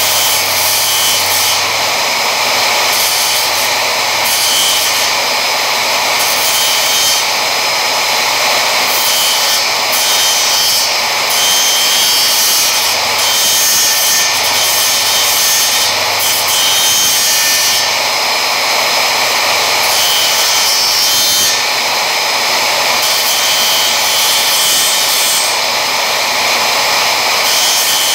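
Circular saw mounted upside down as a mini table saw, running continuously while its blade cuts small pieces of exotic hardwood.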